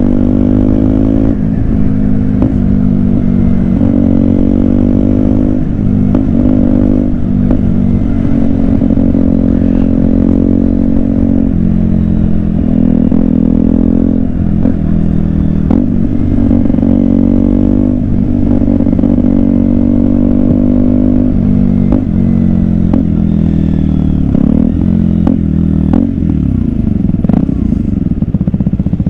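KTM Duke 125's single-cylinder four-stroke engine under way, its revs climbing and then dropping again and again as the bike accelerates and shifts up through the gears.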